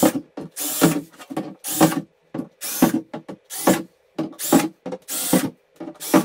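Cordless drill with a 3/16-inch bit drilling a row of holes through the plastic hull of an ice sled. It runs in about eight short spells, a little under one a second, one for each hole.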